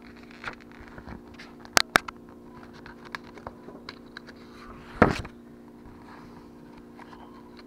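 Pages of a paper recipe booklet being turned and handled: light paper rustles and small clicks, two sharp clicks about two seconds in and a louder page swish about five seconds in, over a faint steady hum.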